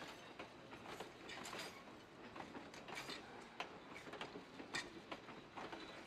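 Heritage railroad passenger coaches rolling slowly past, their wheels and running gear giving faint, irregular clicks, clanks and brief squeals.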